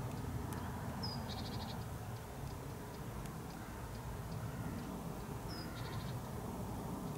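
A small bird calling twice, about a second in and again near the end: each call is a short, high, falling note followed by a quick rattle of high pulses. Under it runs a steady low outdoor rumble.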